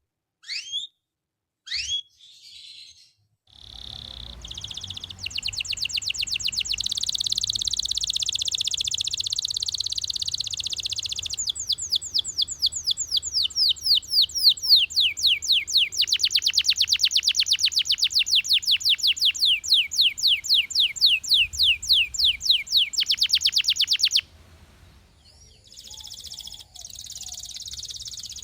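Russian canary singing: a few short chirps, then a long song of fast, rolling trills that changes speed and pitch every few seconds. It breaks off suddenly about 24 seconds in, and softer song picks up again near the end.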